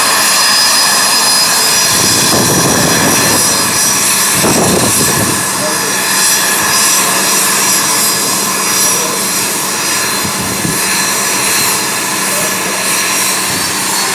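Twin rear-mounted jet engines of a regional airliner running at taxi power as it taxis: a loud, steady high-pitched whine with a rushing hiss, easing slightly toward the end.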